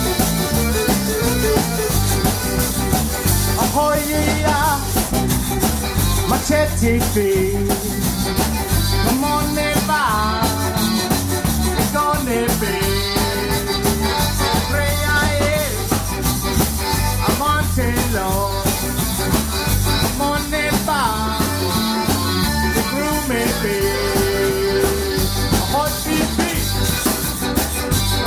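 Zydeco band playing live: piano accordion carrying the melody over washboard (rubboard) scraping, electric bass, drum kit and electric guitar, with a steady dance beat.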